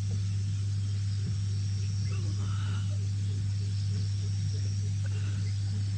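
A steady low hum at an even level, with faint high-pitched insect trilling, likely crickets, above it.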